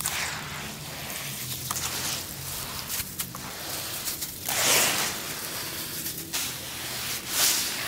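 Charcoal crumbled by hand and dropped back into a bowl of charcoal crumbs: crunching and rustling with small crackles, louder where the crumbs spill, about five seconds in and again near the end.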